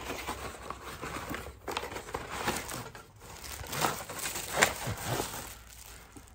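Unboxing a ring light stand: a cardboard box being handled and the stand, wrapped in a clear plastic bag, slid out of it. The bag crinkles and rustles with many small crackles, loudest about four and a half seconds in.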